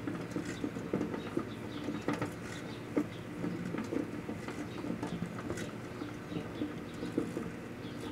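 Microwave oven running with a steady hum while floppy disks burn inside it, the burning plastic giving irregular crackles and pops throughout.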